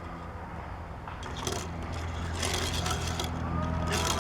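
A die-cast Hot Wheels toy car pushed and skidded by hand across a hard surface: several short scrapes and rattles of its small wheels, over a steady low hum.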